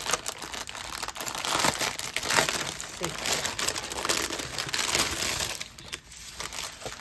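Plastic packaging crinkling and rustling as it is opened and handled by hand. The sound is busiest for the first five seconds or so, then quieter.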